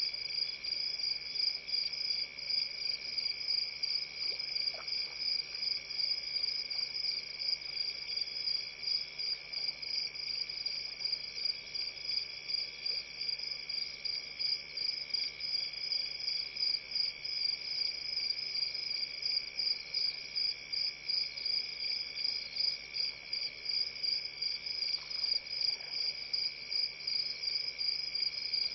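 Night chorus of crickets: a high, rapidly pulsing chirping over a steady lower trill.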